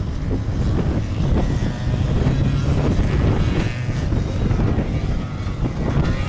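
Off-road vehicle engine running, mixed with wind buffeting the microphone.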